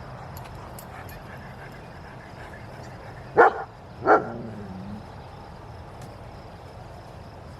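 A dog barks twice, two short barks a little under a second apart, about three and a half seconds in.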